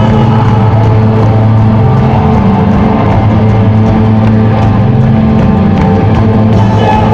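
Live rock band playing loudly, with guitar, bass and a drum kit and held notes over a steady bass line.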